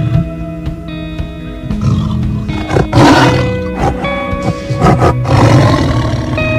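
Tiger roaring twice, the first roar about three seconds in and the louder, the second about five seconds in, over background music.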